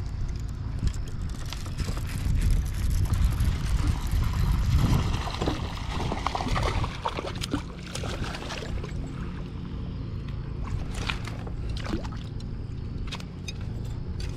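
Water splashing and sloshing as a hooked chain pickerel thrashes at the surface beside a kayak while being reeled in, with short splashes about halfway through and again near the end, over a steady low rumble.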